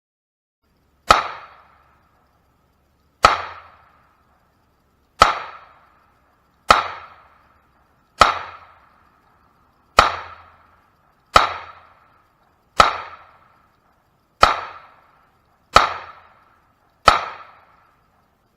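Handgun fired eleven times in slow, steady succession, a shot every one and a half to two seconds, each shot trailing off in a brief echo.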